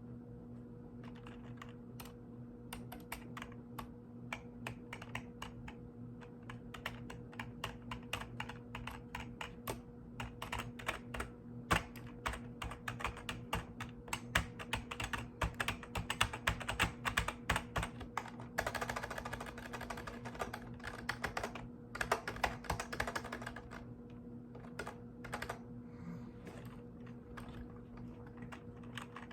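Mechanical keyboard being typed on in quick, irregular runs of key clicks, starting about a second in and thinning out near the end. A steady low hum runs underneath.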